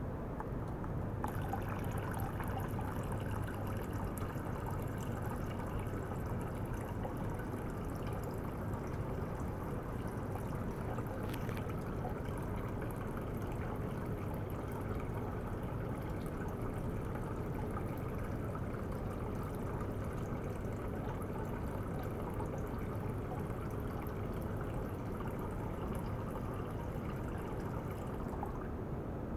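Water trickling and flowing steadily in a tank, with a steady low hum underneath; the trickle's hiss brightens about a second in and fades back near the end.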